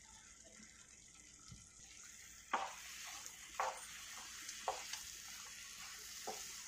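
A spatula stirring moong dal halwa in a pan: a faint steady hiss with several light knocks and scrapes of the spatula against the pan, starting about two and a half seconds in.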